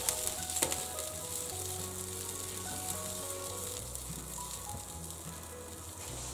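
Chili-paste broth sizzling in a non-stick frying pan just after water has been added, with a wooden spatula stirring through it; the sizzle dies down toward the end. Soft background music plays underneath.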